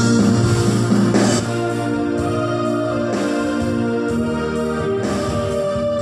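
Electronic arranger keyboard playing an instrumental intro on its auto-accompaniment: held organ-like chords over a rhythm backing, a little louder for the first second and a half.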